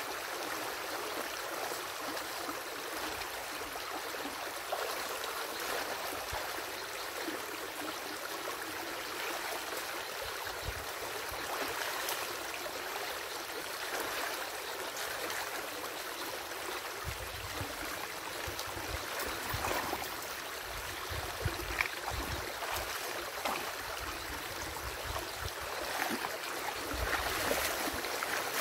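Water of a small stream rushing and gurgling steadily through a breach in a beaver dam. Now and then there are splashes and knocks as sticks are raked out of the dam and the wader moves through the water.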